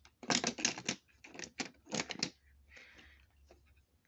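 Die-cast Hot Wheels cars clicking and clattering against an orange plastic race track as they are set into the starting-gate lanes. A quick run of sharp clicks in the first two seconds, then fainter scattered taps.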